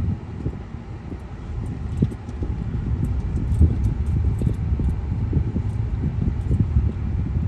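Road noise heard from inside a moving car: a steady low rumble of tyres and engine, with irregular thuds and knocks as the car goes over bumps.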